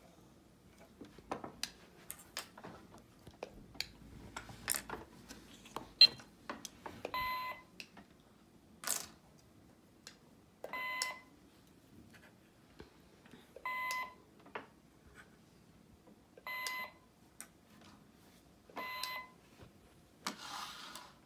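Toy cash register beeping electronically as its handheld scanner is used: five short, identical half-second beeps about three seconds apart, starting about seven seconds in. Before them come scattered light clicks and knocks of plastic toys being handled.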